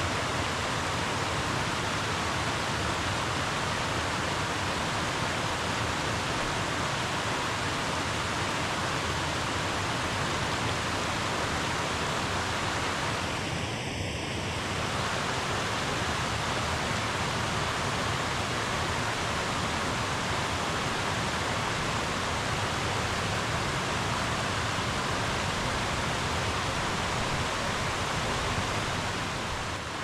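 River water flowing, a steady rush of moving water, dipping briefly in level about halfway through.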